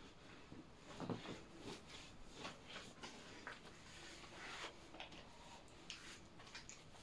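Faint, irregular scratchy strokes and rustles, with a soft knock about a second in.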